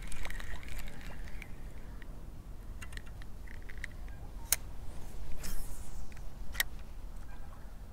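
A few sharp clicks from handling a spinning reel, two of them standing out about halfway through and near the end, over a low steady rumble of wind on the microphone.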